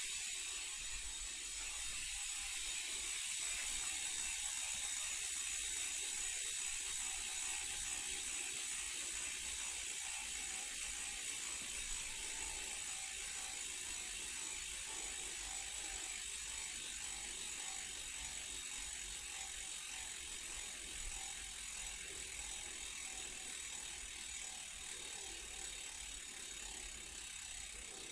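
Mountain bike rear freehub (Gulo hub) buzzing with a fast, even ratchet of pawl clicks as the wheel coasts in a bike stand, slowly fading as the wheel spins down.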